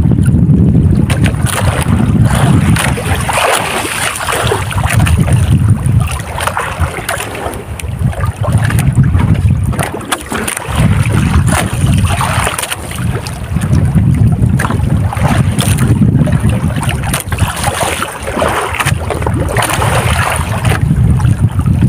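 Wind buffeting the microphone and water washing against the hull of an outrigger fishing boat at sea, a heavy low rumble that surges and eases every couple of seconds. A thin steady high whine runs underneath.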